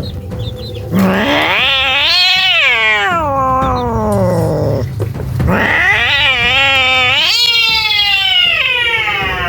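Frightened cat yowling: two long, drawn-out calls, the first starting about a second in, each rising and then sliding down in pitch.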